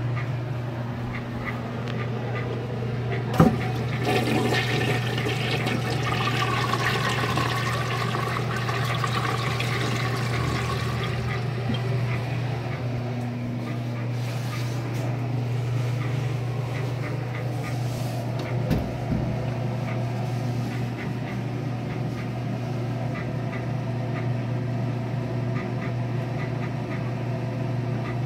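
A toilet flushing: a sharp click of the flush handle about three seconds in, then the rush of the flush for several seconds, fading into the quieter steady run of water as it refills. A steady low hum runs underneath, and there is another sharp knock past the middle.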